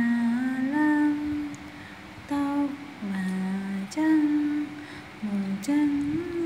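A voice humming a slow tune in long held notes, phrase by phrase with short breaks between them.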